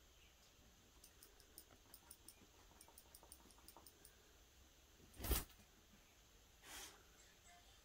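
Near silence with faint soft clicks, broken about five seconds in by a short loud rustle and, a second and a half later, a softer one.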